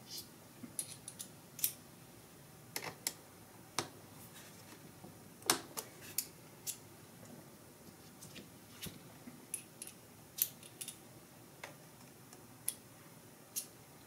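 Light, irregular clicks and clinks of small steel screwdriver bits being picked out of a precision bit-kit tray and handled, while looking for a small Phillips bit.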